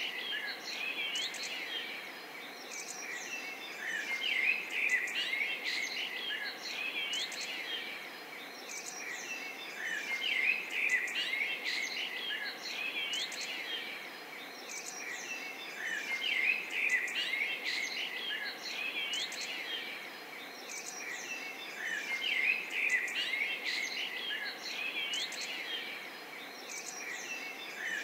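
A chorus of small birds chirping and twittering, dense and continuous, swelling in loudness about every six seconds.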